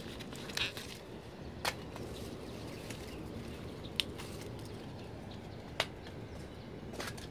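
About five sharp snaps, spread a second or two apart, as lima bean pods and stems are broken off climbing vines, over a steady low background rumble.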